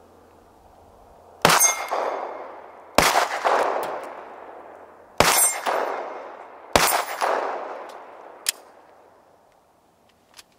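Four handgun shots fired out of a pickup truck's driver's window, about one and a half to two seconds apart, each trailing off over a second or more.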